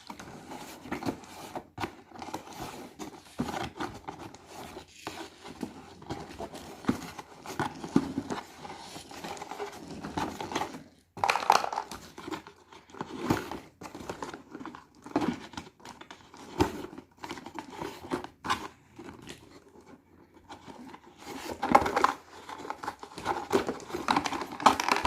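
Toy packaging being handled and opened: irregular crinkling and rustling with sharp crackles and tearing.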